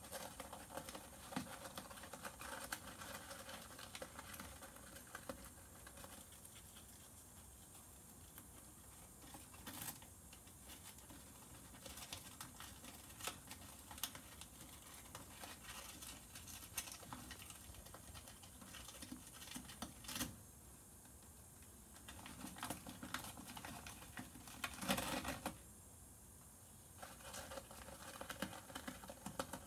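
Kinkuma Syrian hamster gnawing a scrap of paper and rummaging through crinkled shredded-paper bedding: irregular crackling and rustling with a few quiet pauses and a louder burst of rustling about 25 seconds in.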